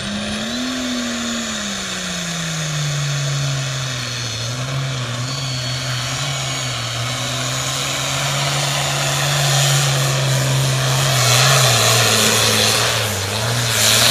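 Super farm class pulling tractor's diesel engine at full throttle, dragging a weight-transfer sled. The engine pitch drops over the first few seconds as the load builds, then holds steady as it pulls. It grows louder near the end.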